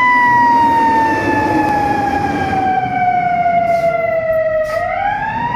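Fire engine siren in a slow wail: one long falling tone that turns and starts rising again near the end, with engine and road noise beneath.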